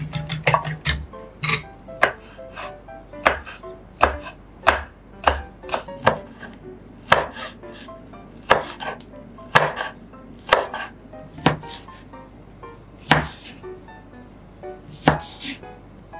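Kitchen knife chopping on a wooden cutting board, cutting green onions and then tomato: separate, uneven strikes, about one or two a second.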